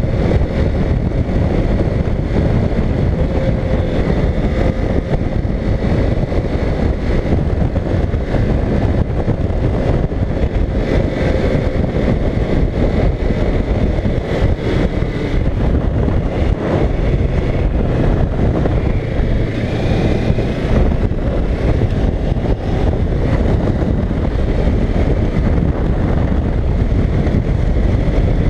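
Wind rushing over the microphone of a Kawasaki Ninja 650 cruising at highway speed, with the steady drone of its parallel-twin engine underneath.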